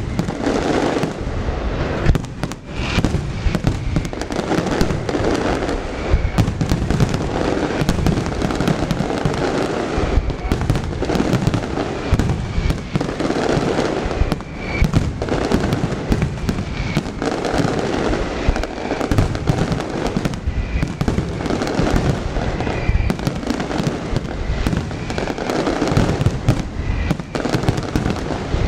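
Aerial fireworks display: a dense, unbroken barrage of bangs and crackles.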